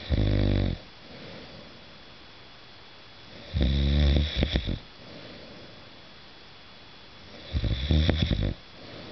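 A man snoring in his sleep: three loud, rattling snores about four seconds apart, each followed by a softer breath.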